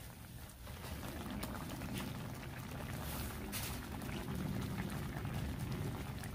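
Tomato-based chili sauce boiling in a hot cast iron pan over charcoal: a dense, steady bubbling with scattered small pops, growing louder about a second in.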